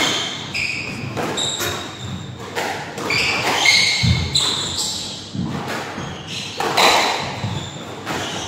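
Squash rally: the ball cracking off rackets and the walls every second or so, with short high squeaks of court shoes on the wooden floor between shots and a dull thump about four seconds in.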